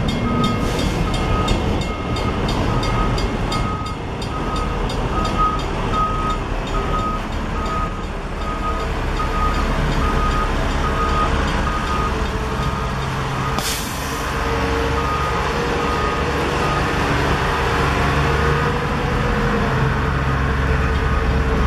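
Rail work train rolling slowly past: cable-reel flatcars, then hi-rail work equipment (a Gradall hi-rail excavator and a track maintenance machine) running on diesel engines. A rapid repeating warning beeper sounds over the rumble and fades out about two-thirds of the way through. A short sharp hiss, like an air release, comes about fourteen seconds in.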